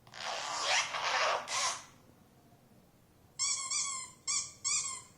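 A breathy hiss for about two seconds, then, after a pause, three short, high, wavering meow-like animal cries in quick succession.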